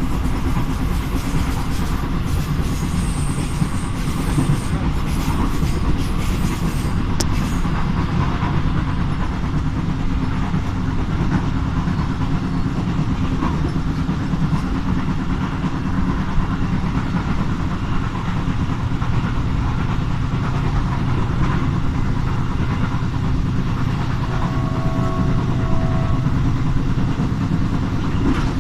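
Train running along the track: a steady rumble of wheels on rails under a low, even drone.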